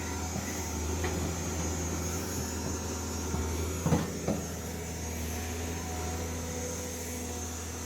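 Caterpillar 320D excavator's diesel engine running steadily at a low idle, with two short knocks about four seconds in.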